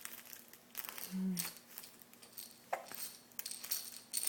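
Baby's toy rattle clicking and clinking in irregular shakes, with one short baby hiccup about a second in.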